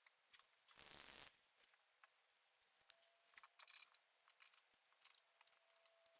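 Faint, short rubbing and scraping strokes in a quiet room, with one louder half-second rustling burst about a second in.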